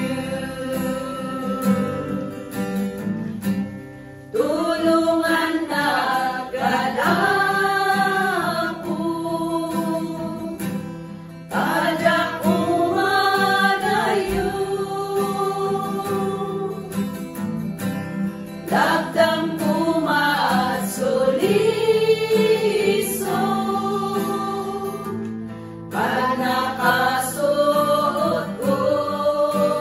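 A small group of women singing a gospel song together in Ilocano to an acoustic guitar. The singing comes in phrases several seconds long, with short breaks between them.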